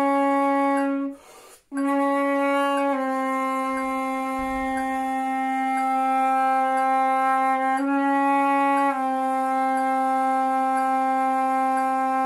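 Silver concert flute playing long, steady low-register notes as a tone exercise. There is a quick breath about a second in, then a held note that steps down slightly, rises back just before the middle, and steps down again.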